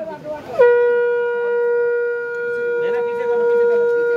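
Conch shell (shankha) blown in one long steady note that starts sharply about half a second in and is held without changing pitch.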